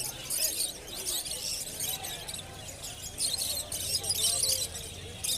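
Many caged small birds chirping and chattering together in quick, overlapping bursts, with faint voices underneath.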